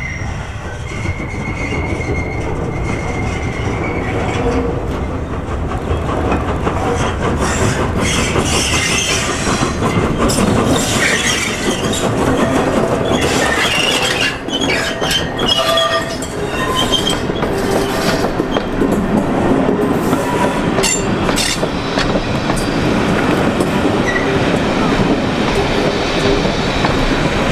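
LNER Peppercorn A1 three-cylinder 4-6-2 steam locomotive 'Tornado' passing close by at low speed at the head of a train, working steam, followed by its coaches rolling past with wheels clattering over rail joints. A high steady squeal sounds in the first few seconds, and sharp clicks and knocks run through the middle as the engine goes by.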